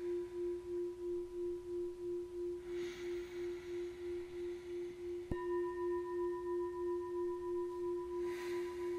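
Metal singing bowls ringing: a low, steady, wobbling tone. About five seconds in, another bowl is struck with a felt mallet, adding a higher ringing tone over it.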